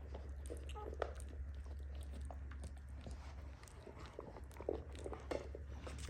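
XL American Bully eating wet-softened kibble from a bowl: irregular chewing, crunching and small bowl clicks.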